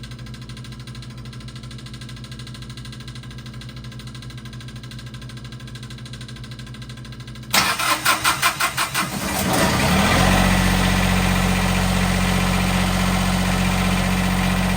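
A steady low hum for about seven seconds, then a Westerbeke marine diesel generator is cranked by its starter: about two seconds of rhythmic chugging. It catches near ten seconds in and settles into a steady idle, starting readily after standing unused for quite a while.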